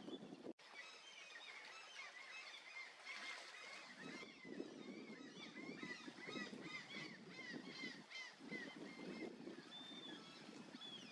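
Common merganser ducklings giving faint, high peeping calls, many short rising-and-falling peeps in quick succession, over a low sloshing of water.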